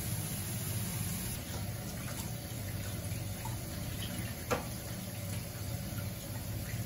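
Kitchen faucet running steadily into a stainless steel pot in a steel sink as a block of pork belly is rubbed and rinsed by hand under the stream, a step to wash off the pork's smell. A single sharp knock sounds about four and a half seconds in.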